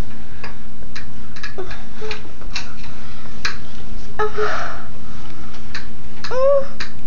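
Irregular light clicks and taps over a steady low hum, with a breath or sniff about four seconds in and a short vocal sound near the end.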